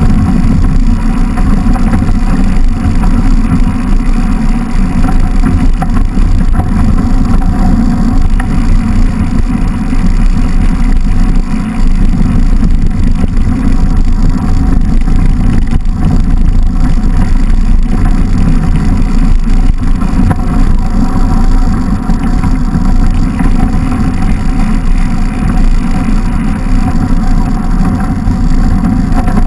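Steady low rumble of wind buffeting the microphone of a bike-mounted camera, mixed with the mountain bike's knobby tyres rolling over snow, during a fast descent.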